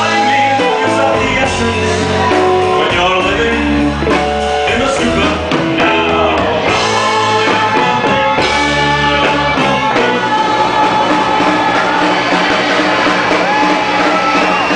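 Live rock-style band music: a man sings lead into a microphone, with women's backing vocals, over drums and electric guitar.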